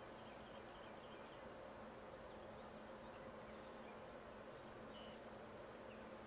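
Near silence: faint outdoor ambience, a steady low hum with scattered faint high chirps.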